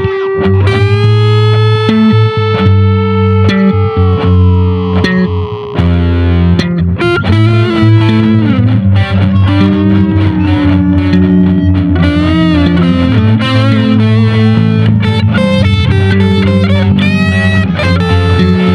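Electric guitar with overdrive playing a lead line in an A minor blues over a steady bass line. A long sustained note bends in pitch over the first few seconds, then quicker phrases follow.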